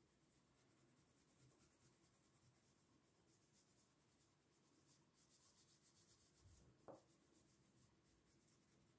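Faint scratching of an oil pastel rubbed back and forth on paper, colouring in an area with quick repeated strokes. A short soft knock about seven seconds in.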